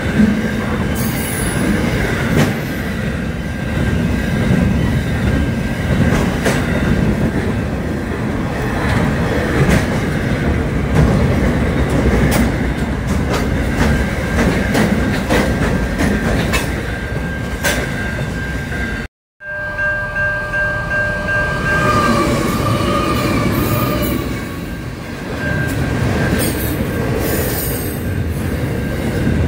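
Long container freight train passing close at speed: a steady rumble of wagons with repeated clicks and clatter of wheels over the rail joints, and thin high wheel squeal at times. The sound cuts out for an instant about two-thirds of the way through, then the rumble resumes.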